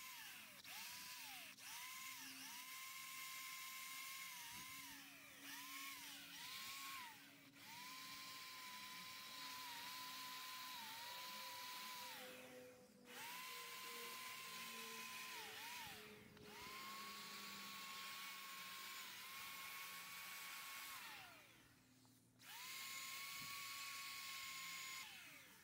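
Corded electric drill spinning a steel wire cup brush against a rusted iron railing to scrub off rust, a faint whine over a scratchy rasp. It runs in several bursts of a few seconds each, and the whine drops in pitch as the motor winds down each time the trigger is let go.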